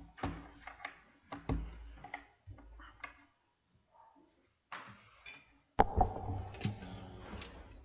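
Scattered knocks, clicks and shuffling footsteps of people moving and handling things near the microphones. About six seconds in, a sharp knock, the loudest sound here, and an acoustic guitar's strings ringing on as the guitar is handled.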